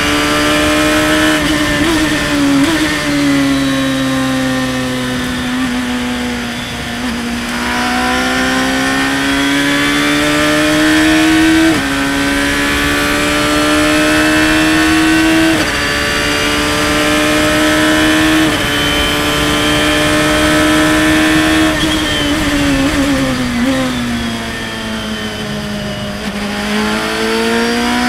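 Radical open-cockpit race car's engine at high revs under hard acceleration, its pitch climbing and then stepping down at several quick gear changes. About three quarters of the way through the pitch falls as the car brakes and shifts down, then climbs again as it accelerates near the end.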